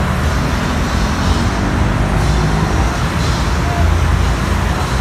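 Heavy road traffic: a line of trucks, pickups and cars idling and creeping forward, a steady, loud, low engine and road noise.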